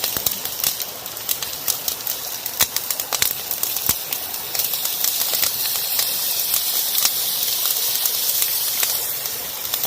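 Oil sardines frying in olive oil, sizzling with many sharp spattering pops; the sizzle grows louder from about halfway through and eases near the end.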